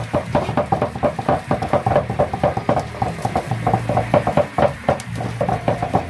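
Rapid, irregular knocking, several sharp strikes a second, continuing throughout.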